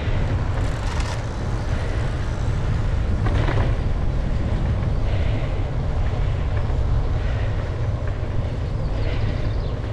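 Steady low wind rumble buffeting the microphone of a camera riding on a moving bicycle, with road noise over it.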